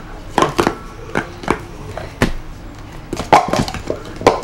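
Hard plastic sport-stacking cups clacking against one another and the mat as they are handled and stacked. Single clacks come every half second or so at first, then a quicker run of clacks from about three seconds in.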